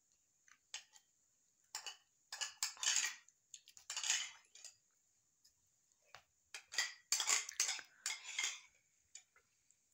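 A metal spoon scraping and clinking against a ceramic soup bowl while someone eats. The sound comes in several short bouts of rapid scrapes and clicks, with quiet gaps between them.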